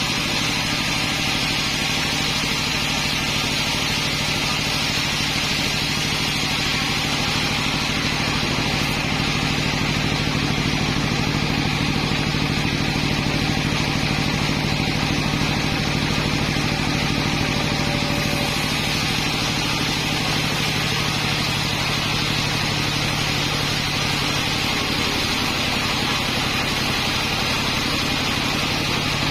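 Engine-driven sawmill running steadily and without a break.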